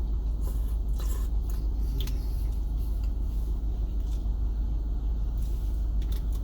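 Steady low rumble of a car's running engine, heard inside the cabin, with scattered small clicks and scrapes of eating and a plastic utensil.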